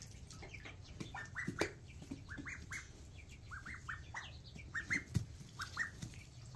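Young poultry peeping: short high calls in quick runs of three or four notes, with a few soft clicks.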